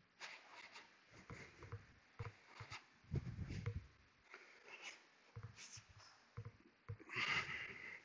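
Faint handling noises of tools and parts in a workshop: scattered light clicks and knocks with a few dull thumps, and a short hiss about seven seconds in.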